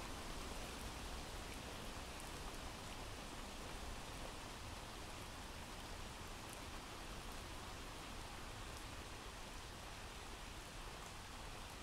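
Steady rain falling: a recording of rain played as background ambience.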